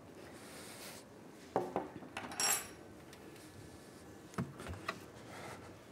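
A spoon and glass dessert dishes clinking: a few knocks and sharp clicks, with one brighter ringing clink about two and a half seconds in.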